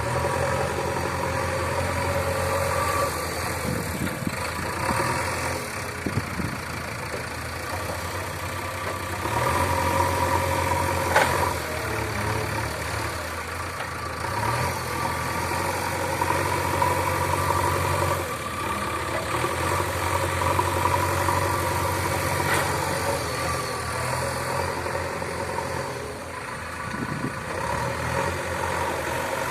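Diesel engine of a JCB earthmoving machine running at work, its note shifting every few seconds as the load changes, with one sharp clank about eleven seconds in.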